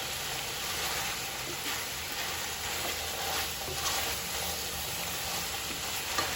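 Chicken pieces sizzling steadily in hot oil and caramelized brown sugar in a pot as the last of the cooking liquid evaporates.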